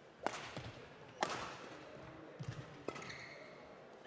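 Badminton rally: three sharp racket strikes on the shuttlecock, the first two about a second apart and the third under two seconds later, each ringing briefly in the hall, with a low thud of a player's footfall on the court between the second and third strikes.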